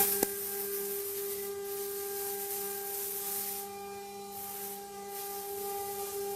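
CNC wood-carving router running: a steady high spindle whine over a hiss of cutting noise that thins out for short spells.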